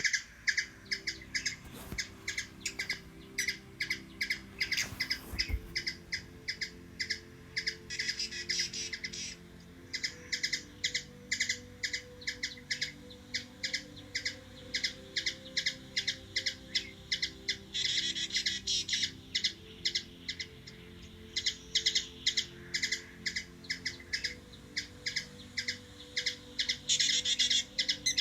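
Hummingbird chipping over and over, about two or three sharp high chips a second, breaking now and then into short runs of faster chattering.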